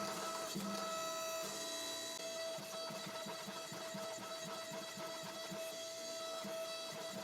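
Power hammer fitted with combo dies striking in a fast, even rhythm, drawing out a hot spike shank, with a steady tone underneath.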